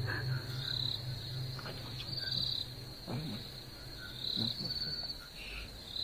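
Crickets chirping in short, high, repeated bursts over a low steady hum.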